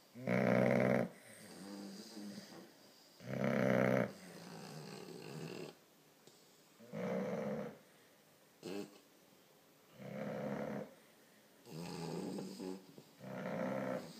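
An English bulldog puppy and an American bulldog snoring in their sleep: six loud snores a few seconds apart, coming closer together near the end, with softer breaths between.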